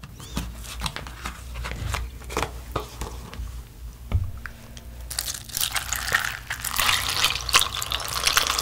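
Paper milk carton being handled and its top worked open, with crinkling and scattered clicks. About five seconds in, milk starts pouring from the carton onto crisp cereal flakes in a mug: a steady splashing hiss with crackling.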